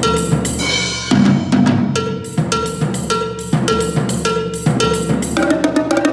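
Solo multi-percussion playing on toms and snare drum: a driving pattern of drum strokes with recurring ringing pitched hits, and a quick flurry of strokes near the end.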